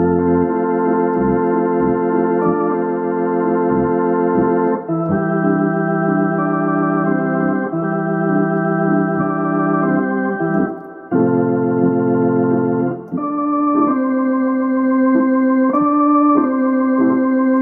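Hammond C3 tonewheel organ playing a slow tune in held, wavering chords, with short bass pedal notes beneath. The chords break off briefly twice in the second half.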